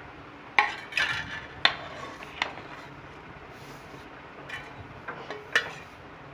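A long steel serving spoon scraping and knocking against the inside of a steel pot as biryani rice is scooped out. It gives sharp metallic clinks and scrapes, four in the first few seconds and a few more a little before the end.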